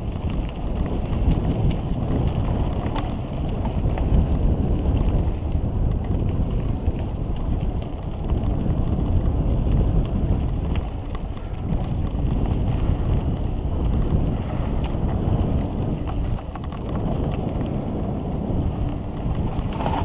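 Mountain bike descending a dirt singletrack: wind rushing over the microphone and the tyres rumbling on the dirt in rising and falling waves, with scattered clicks and rattles from the bike.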